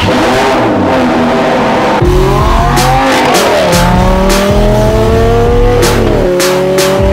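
Lamborghini Gallardo LP550-2's 5.2-litre V10 accelerating hard away, revving up through the gears, with the pitch dropping at an upshift about three and a half seconds in and again about six seconds in.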